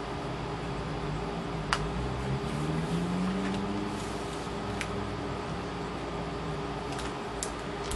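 Steady mechanical room hum with a few sharp clicks and crinkles as plastic sticker packets are handled on a tabletop.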